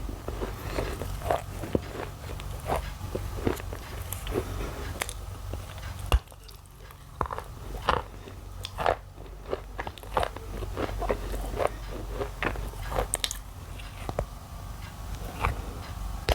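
Thin pieces of white shale being bitten and chewed close to the microphone: a quick, irregular run of sharp, dry crunches.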